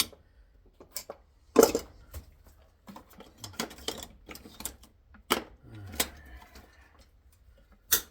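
Loose metal scrap parts being handled, clinking and clattering against each other and the work surface in a string of separate sharp knocks and clicks. The loudest knock comes about one and a half seconds in.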